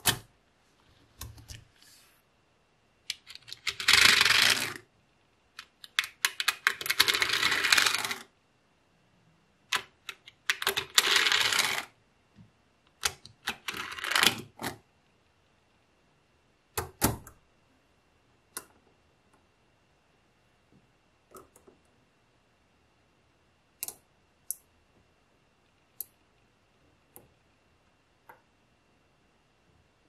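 Small metal magnet balls clicking and rattling against each other as they snap together and are pressed into place. Several dense bursts of rattling come in the first half, then only occasional single clicks.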